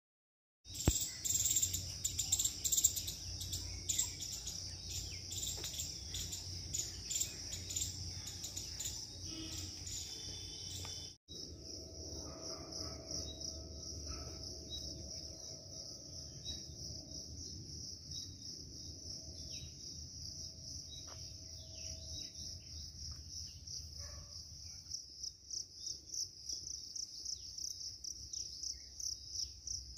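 A steady, high-pitched insect chorus in woodland, with scattered short bird chirps over it. The insect sound breaks off for an instant about eleven seconds in and turns to a pulsing rhythm near the end.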